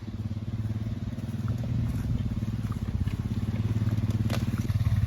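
ATV engine running with a fast low pulse, growing steadily louder, with one sharp click a little after four seconds in.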